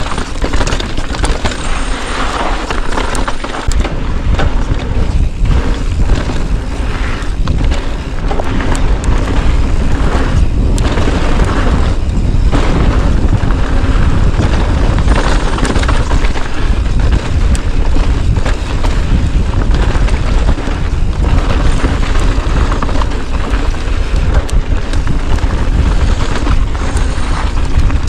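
Wind buffeting an action camera's microphone at speed: a loud, steady rumble with a rushing hiss over it.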